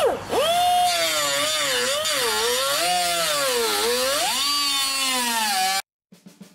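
Power cutting tool cutting through the sheet-metal cab floor pan, its whine dipping and rising in pitch as it bogs under load. It cuts off suddenly near the end.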